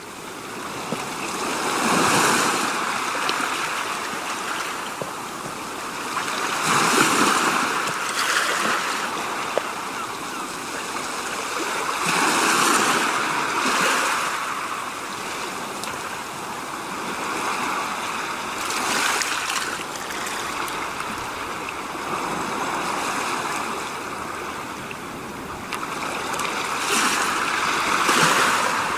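Rushing water: a steady hiss of water that swells and eases about every five or six seconds.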